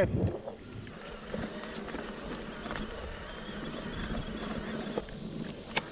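Electric mountain bike riding along a dirt trail: tyres rolling and the bike rattling, with wind buffeting the microphone and a sharp click near the end.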